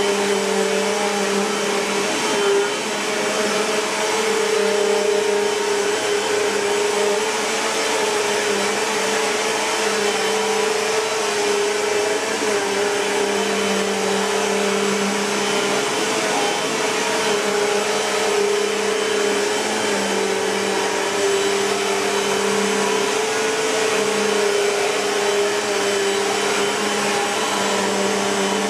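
Bissell PowerForce Compact (2112) bagless upright vacuum cleaner running, a steady motor whine over the rush of airflow with slight wavering in pitch.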